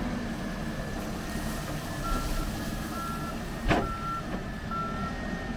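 Backhoe engine running with its reversing alarm beeping about once a second, the beeps starting about two seconds in. There is one sharp knock a little past halfway.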